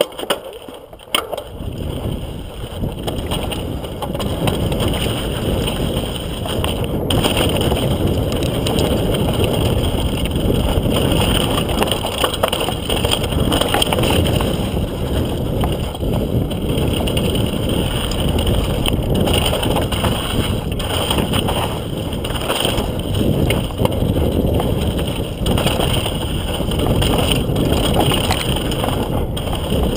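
Mountain bike rolling down a rocky dirt trail: tyres crunching over dirt and rock, the bike rattling over bumps, with wind on the microphone. It builds up about a second in as the bike gets going.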